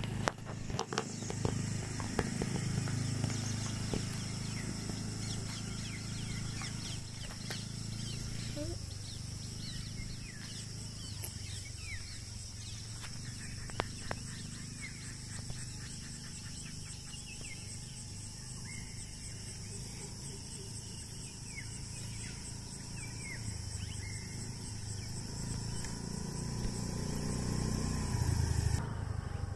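Motor scooter's small engine running as it is ridden across a grass field, a low drone that grows louder near the end as it comes toward the microphone. A steady high insect chorus runs underneath, with a few bird chirps in the middle.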